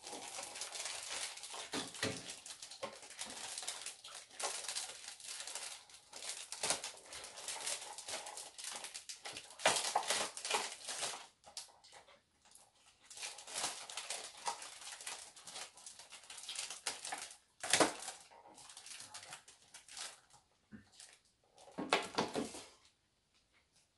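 Thin plastic bread wrappers and a plastic tray crinkling and rustling as they are handled, in irregular bursts with short pauses. The sound stops about a second before the end.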